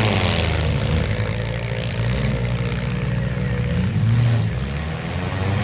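Small demolition-derby compact cars' engines running and revving, their pitch rising and falling, over a wide wash of noise.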